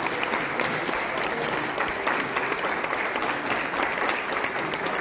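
A roomful of people applauding steadily: many hands clapping together.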